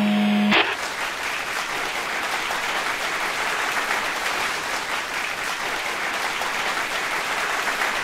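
A held musical note ends about half a second in, then steady applause continues.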